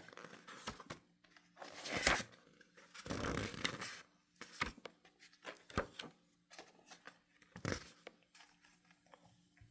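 Paper being handled close to the microphone: book pages turned and rustled in a series of short swishes, with a few sharp taps in between.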